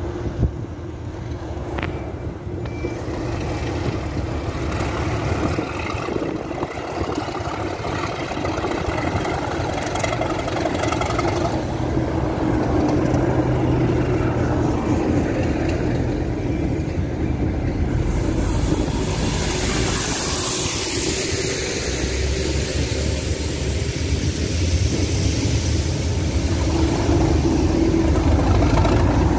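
Class 37 diesel locomotives' English Electric V12 engines working as the train moves past, a loud, steady drone with a low rumble that builds over time. About 18 seconds in, a rushing hiss swells in and dies away over a few seconds.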